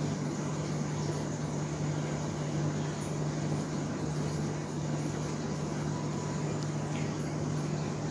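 Steady low hum with an even hiss: constant background machine or room noise, with no distinct sound from the batter being poured.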